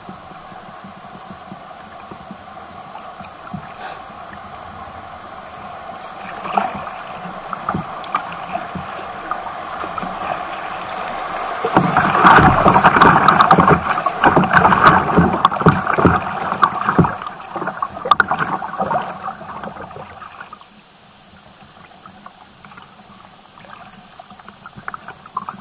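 Small stream rapids rushing and splashing around a kayak running through them. A steady rush builds over the first several seconds and turns into loud, choppy splashing about twelve seconds in. It drops off sharply to a quiet lapping about eight seconds later as the kayak glides into calm water.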